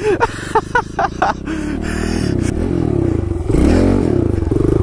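Kawasaki KLX110L pit bike's small single-cylinder four-stroke engine revving up and down under riding, getting louder about two seconds in and climbing again about three and a half seconds in.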